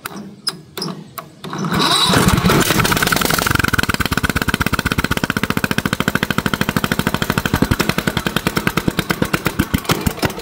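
A few sharp clicks, then the 19.5 hp Briggs & Stratton Professional Series lawn mower engine cranks and catches about two seconds in. It keeps running with a fast, even pulse, started by jumping the starter from a battery with the fuel shutoff and choke rigged.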